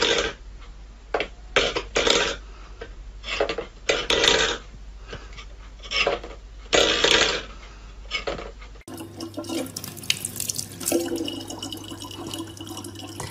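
A stainless steel bowl is scraped and knocked across a wooden floor by a cat's paw, in about eight short rattling scrapes. About nine seconds in, the sound switches to a thin stream of water running steadily from a faucet into a plastic bottle.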